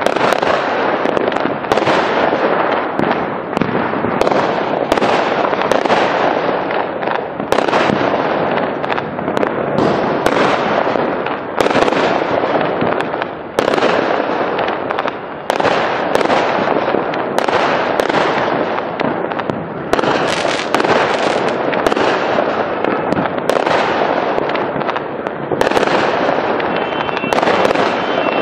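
Aerial fireworks going off without a break: loud bangs of bursting shells about once a second over steady crackling from the stars.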